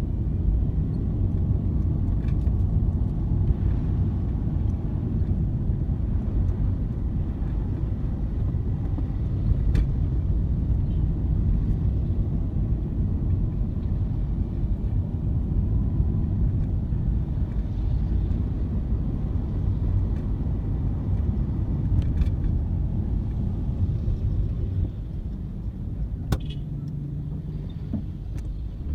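Steady low rumble of a car on the road, with a few faint clicks. It eases somewhat about 25 seconds in.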